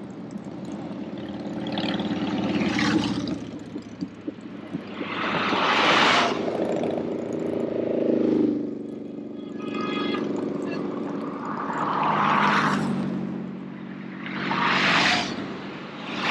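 A line of motorcycles riding past one after another. Each engine swells and fades as it goes by, about five passes in all, and one engine's pitch drops as it passes.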